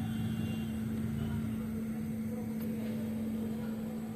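Steady hum and whir of a small electric motor, such as a bench blower, with a constant low tone under it that eases slightly near the end.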